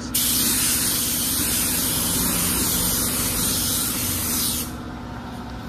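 Gravity-feed air spray gun laying down a first coat of clear coat: a steady hiss of air and atomised paint while the trigger is held, cutting off about a second before the end. A low hum continues underneath.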